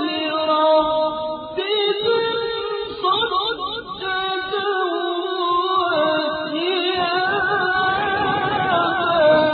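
A solo reciter chanting the Quran in a melodic tajweed style. The voice holds long notes that waver and glide in pitch, with short breaks between phrases.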